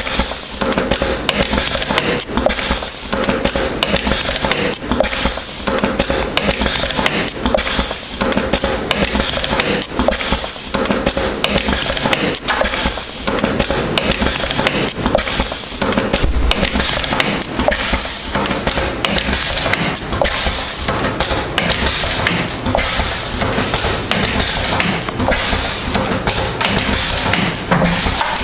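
Stil-Mec MM70 automatic chain-making machine running, its tooling clattering with rapid, continuous metallic clicks and knocks as it forms and closes wire chain links, over a steady hum.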